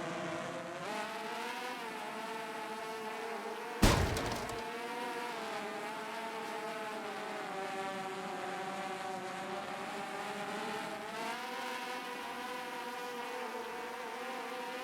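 DJI FPV drone's motors whining, the pitch rising and falling as the throttle changes. There is a sudden loud thump about four seconds in.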